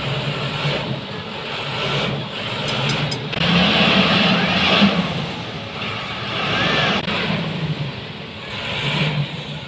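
Engine of a heavy road-construction vehicle running, its level swelling and easing every couple of seconds.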